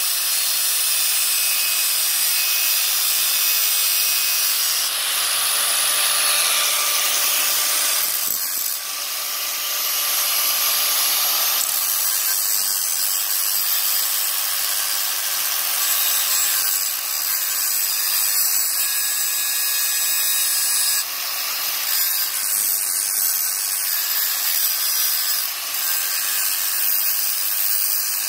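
Angle grinder with a cutting disc cutting through the metal exhaust pipe of a Yamaha Byson motorcycle: a steady high grinding hiss that dips briefly a few times as the disc eases off the cut.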